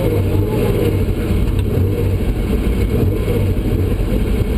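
Porsche 911 rally car's air-cooled flat-six engine running steadily at low revs, heard from inside the cabin.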